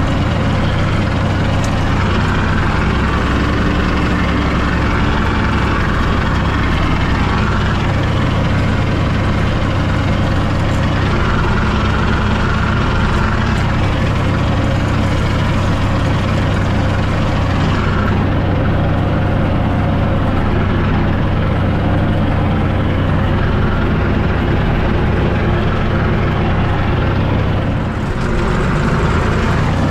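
Tractor engine running steadily at a constant speed, with a brief dip in loudness near the end.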